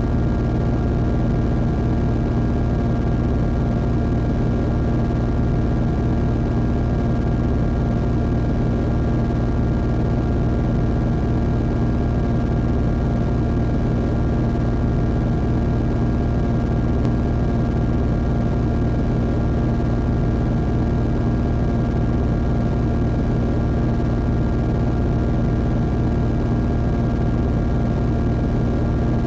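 Steady experimental drone: a dense low rumble with several held tones above it, unchanging throughout.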